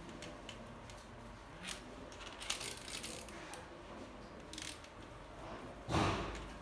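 Light metallic clicks and clinks of small steel parts and a hand tool being handled against an engine block, with a louder dull knock about six seconds in.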